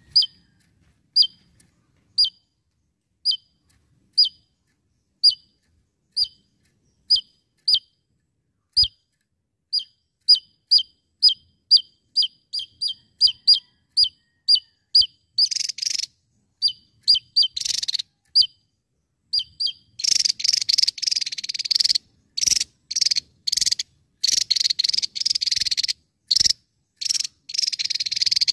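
Javan tesia singing: sharp, downslurred whistled notes, at first about one a second, quickening to a rapid series about halfway through, then giving way to harsh, buzzy rattling bursts that come thick and fast in the last third.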